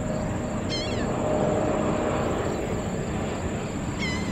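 Steady jet aircraft noise at an airport, with two short, high, wavering chirps, about a second in and again near the end.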